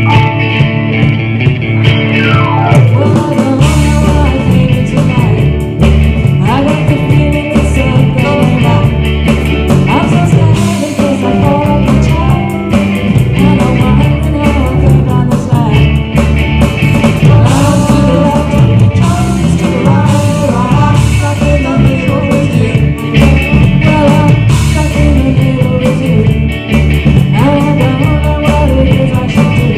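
Live rock band playing, with electric guitar and singing; heavy bass joins in a few seconds in.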